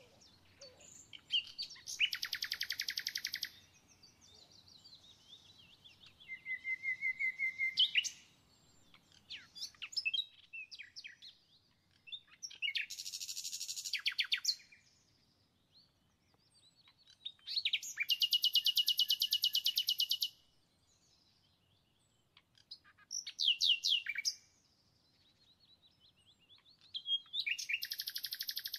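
A small songbird singing in about six phrases of fast trills, each one to three seconds long, with short pauses between them.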